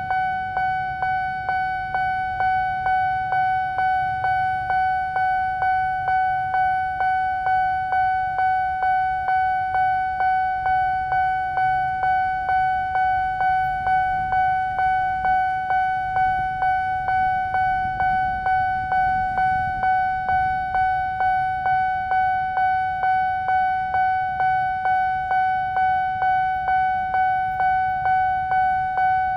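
Railroad level-crossing warning bell ringing steadily, about two strikes a second, each strike a single clear tone that dies away before the next, sounding while the crossing is closed for an approaching train. A low rumble runs underneath.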